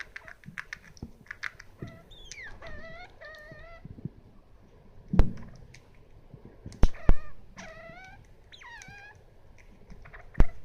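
Degu making angry, defensive squeaking calls while guarding its food: runs of short, pitched chirping squeaks in bursts, some sliding down in pitch. Sharp clicks or knocks break in between, the loudest about five, seven and ten seconds in.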